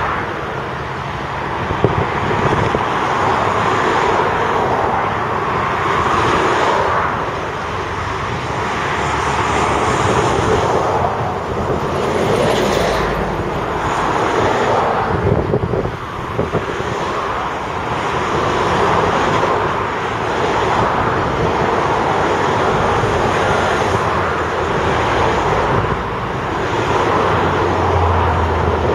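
Diesel engines of Volvo six-wheel articulated dump trucks and a tracked excavator working, a steady mechanical din that rises and falls every few seconds, with a few brief knocks.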